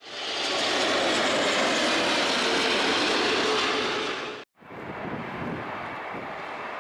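Jet aircraft engine noise, a broad rushing sound with a faint steady hum, fading in and then cutting off abruptly about four and a half seconds in. After that, quieter steady outdoor background noise.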